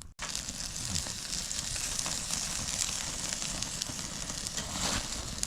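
Burgers and sausages sizzling over a wood campfire: a steady hiss with the small crackles of the burning wood. It begins abruptly after a brief gap at the very start.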